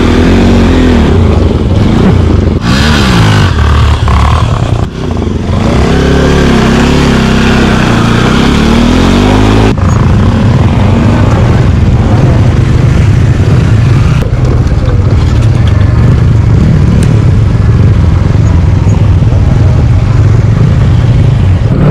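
Motorcycle engine heard from the rider's seat, revving up and falling back several times as it pulls away and shifts through the gears, then running steadily at a constant speed from about ten seconds in.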